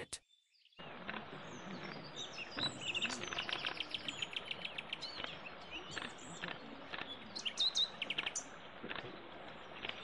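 Small birds chirping and calling, with quick runs of rapidly repeated chirps, over a steady hiss of flowing water; it starts about a second in after a brief silence.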